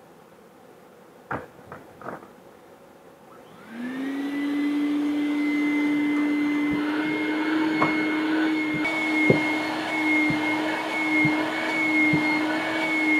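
Craftsman wet/dry shop vacuum switched on about four seconds in, spinning up with a rising whine and then running steadily, with occasional sharp clicks. A couple of knocks come before it starts.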